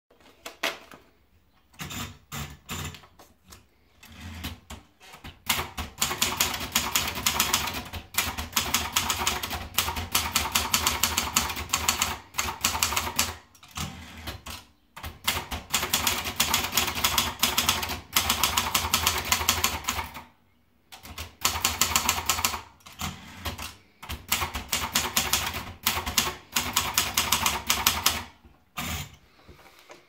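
Sperry Remington Ten Fifty portable typewriter: a few scattered clicks as paper is fed in, then fast runs of typebar strikes on the platen in several long bursts, with short pauses between them.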